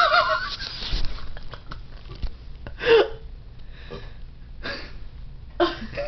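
A person burping: one loud short burp about halfway through, falling in pitch, and two fainter, breathier ones near the end. A voice trails off at the start.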